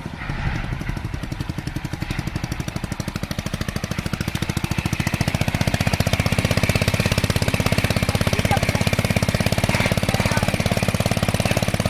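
Motorcycle engine running with a rapid, even firing beat, growing louder about five seconds in.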